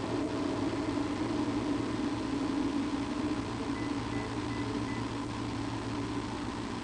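Steady low mechanical hum with a hiss, even throughout.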